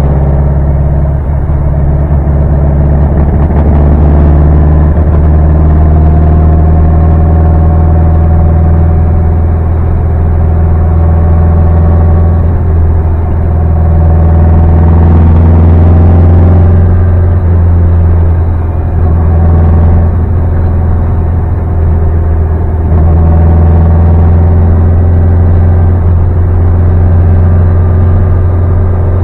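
Custom 1960 Volkswagen Beetle's fuel-injected engine and performance exhaust running steadily while driving, heard loud from inside the cabin as a low drone. The engine note rises a few times as the car picks up speed.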